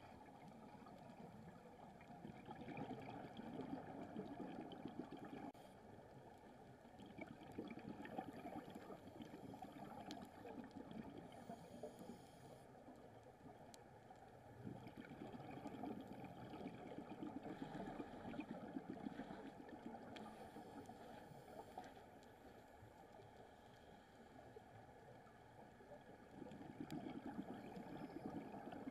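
Faint, muffled underwater noise heard through a camera's waterproof housing: a low crackling hiss that swells and eases every several seconds.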